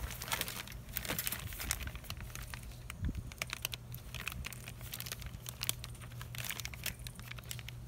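Plastic bag crinkling and crackling in irregular bursts as a bagged motorcycle fork spring is handled and lifted out of a foam-lined box.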